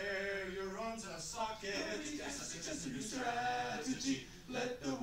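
A small group of men singing together without instruments, in long held notes broken by short breaths.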